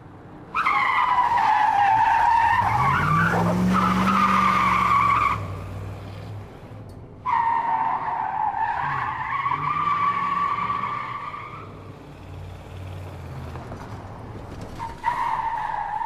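Vehicle sound: a high, wavering tone in three stretches that start and stop abruptly, about half a second in for some five seconds, about seven seconds in for some four seconds, and again near the end. Under the first stretch a low tone rises and falls.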